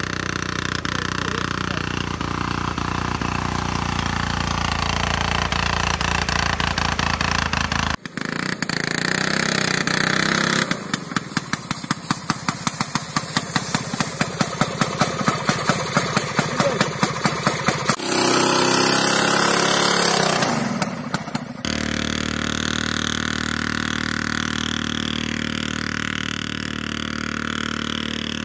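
Homemade aerosled driven by a single-cylinder two-stroke IZh Planeta motorcycle engine turning a pusher propeller, running as the sled moves over the ice. The engine's firing strokes come through plainly as it passes close, with a loud hissing rush of air for a few seconds, then the sound settles to a steadier run as the sled moves away.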